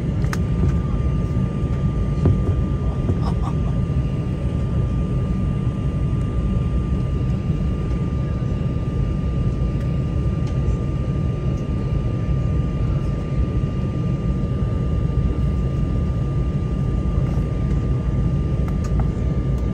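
Steady cabin noise of an Embraer 190 taxiing, heard from a seat over the wing. Its General Electric CF34 turbofans run at low thrust as a low rumble with a steady high whine over it.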